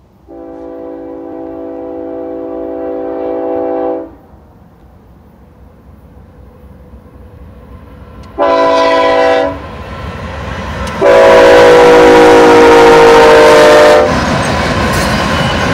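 BNSF ES44C4 lead locomotive's air horn sounding three blasts as the train approaches. A long blast grows louder, a short blast comes about eight seconds in, and a third, loudest long blast dips slightly in pitch as the locomotive passes. Then the steady rumble of the diesel locomotives and the train passing close by.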